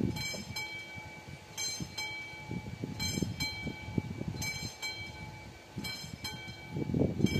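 Railway level crossing warning bell ringing in pairs of strokes about every second and a half, signalling that a train is approaching. A low rumble swells near the start and again near the end.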